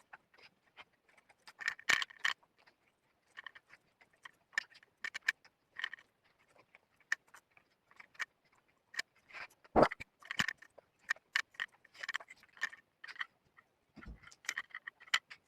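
Clothing and a belt being handled: irregular light clicks, jingles and rustles, with two soft thumps, about ten and fourteen seconds in.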